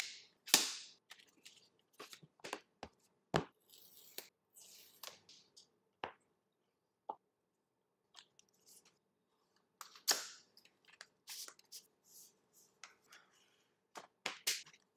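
Apple Watch Series 7 paper-and-cardboard packaging being handled and opened: scattered clicks, rustles and short tearing sounds, the clearest ones near the start, about three seconds in and about ten seconds in.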